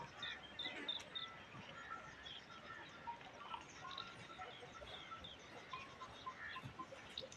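Many birds chirping and calling, short calls overlapping one another throughout, faint over a light outdoor background hiss.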